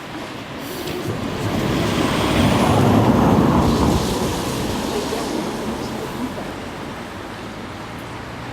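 A vehicle passing by: a rushing noise that swells to a peak about three seconds in, then fades away.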